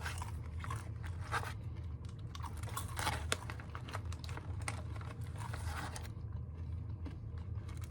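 A person chewing and crunching a mouthful of candied kettle-corn popcorn, a stream of small irregular crunches, closely miked over a steady low hum.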